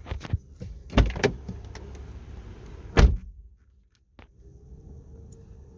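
2014 Chevy Sonic's driver door being worked: a few latch clicks and knocks, then the door shut with a loud slam about three seconds in. It is the open-and-close-the-door step of the key-programming procedure.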